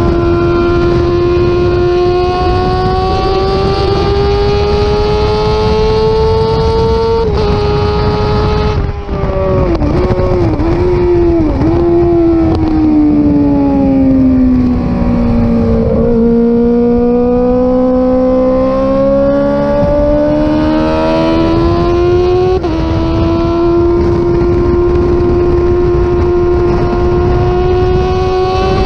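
Suzuki GSX-R600 inline-four engine at high revs on a track lap. The engine note holds high, drops in a few quick dips about ten seconds in as the bike brakes and shifts down, sinks to its lowest about halfway through, then climbs steadily again under acceleration.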